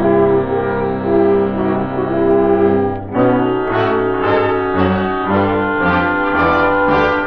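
Orchestral closing music led by brass: a held chord for about three seconds, then a run of shorter, separate notes.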